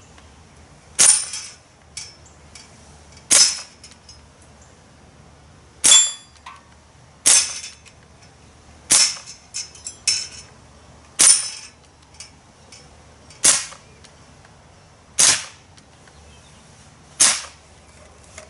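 Daisy/Winchester M14 CO2-powered semi-auto air rifle firing nine sharp pops, one every one and a half to two and a half seconds. Fainter ticks fall between some of the shots.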